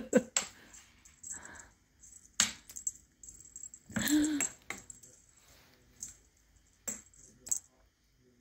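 Scattered light clicks, taps and rustles as a feathered cat wand toy is waved about over a cat tower, with a brief voiced hum about four seconds in.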